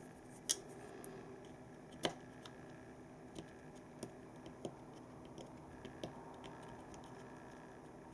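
Scattered small clicks and taps of plastic mouse parts and small tools being handled during a gaming-mouse repair, with a sharper click about half a second in and another about two seconds in.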